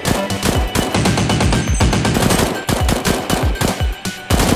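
Gunfire sound effects dubbed over toy blasters: rapid bursts of automatic-weapon fire, with short breaks between bursts.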